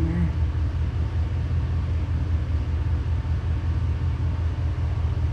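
Steady low rumble of an idling engine, cutting off abruptly near the end.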